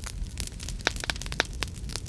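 Wood fire in a fireplace crackling, with irregular sharp pops over a steady low rumble of the flames; two louder pops about a second and a second and a half in.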